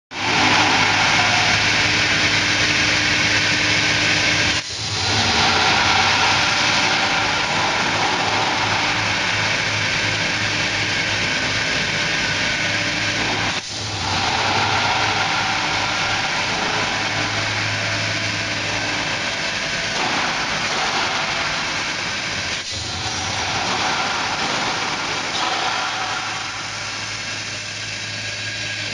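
Square-tube roll forming mill running: a loud, steady machine noise from the motors and forming roll stands, with a low electrical hum beneath it. The noise dips briefly three times, and it is a little quieter near the end.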